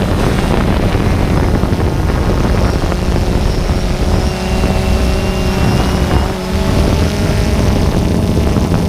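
An engine or motor running steadily, a loud, even drone with a low hum.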